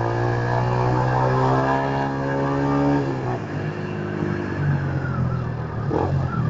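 Yamaha Fazer 150's single-cylinder four-stroke engine running through an aftermarket sport exhaust, pulling steadily under throttle while riding. About three seconds in the throttle closes and the engine note drops to a weaker, lower and more uneven sound.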